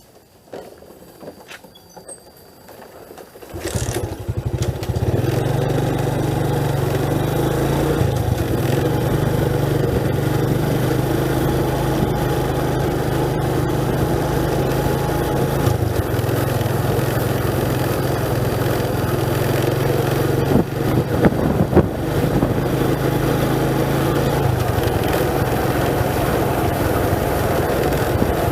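A vehicle engine starts about three and a half seconds in, then runs steadily at a low, even pitch that steps slightly a few times.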